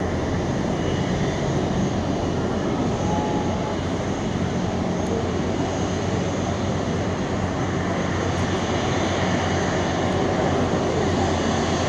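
Airbus A330 airliner's twin jet engines running at low taxi power as it rolls along the taxiway: a steady, even noise with a low hum underneath.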